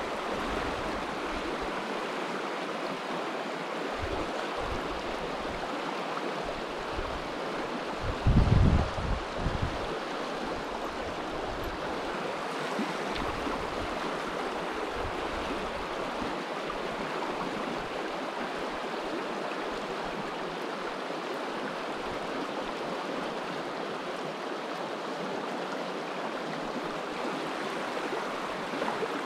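Shallow mountain river rushing steadily over rocks through fast riffles. About eight seconds in, a brief loud low rumble cuts in for a second or so.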